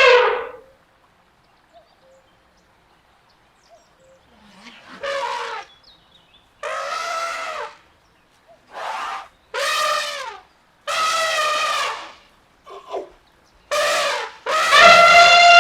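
Elephant trumpeting: one call fades out at the start, then after about four seconds of quiet comes a run of short trumpet blasts, and near the end a long, loud trumpet call begins.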